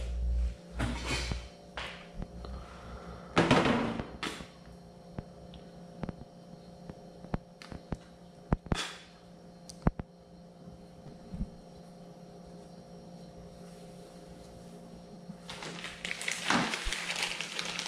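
Hands twisting and handling the small wire ends of an audio system's wiring harness: scattered sharp clicks and short rustles, a denser rustling near the end, over a faint steady hum.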